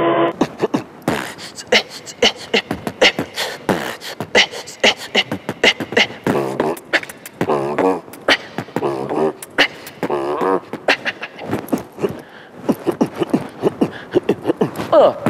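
Human beatboxing: a fast groove of mouth-made kick, snare and hi-hat-like clicks and pops, with wavering pitched vocal tones woven in around the middle.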